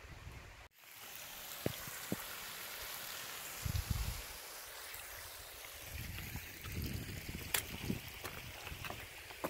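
Steady rush of running water from a mountain stream, with a few sharp clicks and low bumps over it. A brief dropout about a second in, then the water sound continues.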